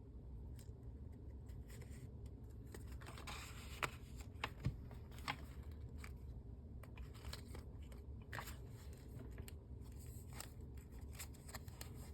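Pages of a handmade paper junk journal being turned and handled: soft paper rustles and scattered light clicks, a few sharper ones about four to five seconds in, over a steady low hum.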